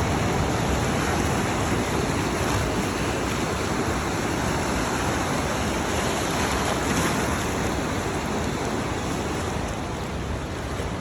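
Ocean surf washing steadily, a continuous rush of waves with no breaks.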